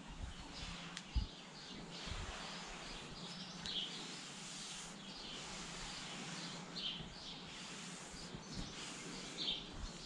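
Terry-cloth towel rubbing over a horse's short coat, a steady soft rustling, with small birds chirping three times in the background.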